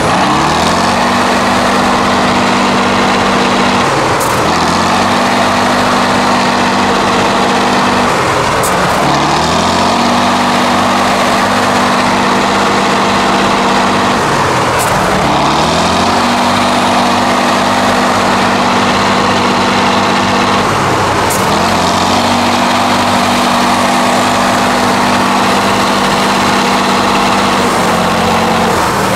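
Tatra 8x8 trial truck's diesel engine working under heavy load in deep mud. Its note dips and climbs back to a steady pitch about five times, every four to six seconds.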